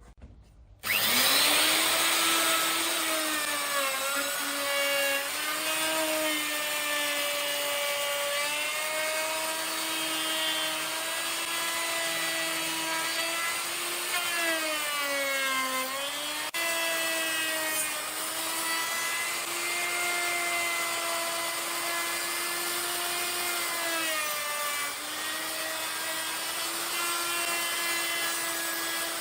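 An electric power tool's motor starts about a second in and runs steadily on wood, its whine sagging in pitch now and then as it takes the load, most clearly around the middle of the stretch.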